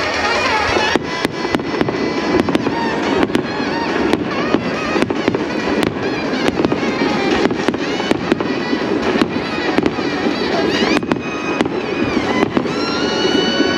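Fireworks going off in quick succession: many sharp cracks and bangs, about two or three a second, over music.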